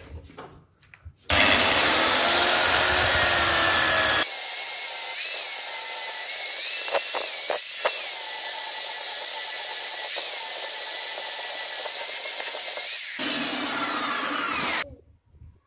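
Electric belt sander running on a raintree wood slab, sanding an inlaid bowtie key flush with the surface. It starts about a second in, is louder for the first few seconds, then runs steadily and cuts off suddenly near the end.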